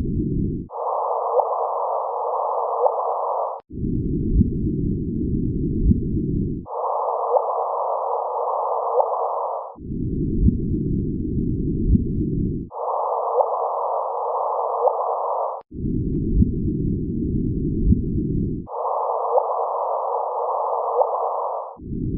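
Audio sonification of LIGO's gravitational-wave signal from two colliding black holes. It is played in runs of about three seconds that alternate between the true low frequencies, a deep noisy band, and a higher-shifted version. Each run is a dense hissing band with brief chirps in it.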